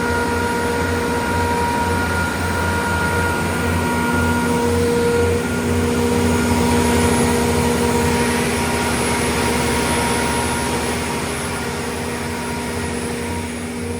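MTU 12V1600G80S V12 diesel engine of a 600 kW generator set running steadily, with a deep hum and a few steady whining tones above it.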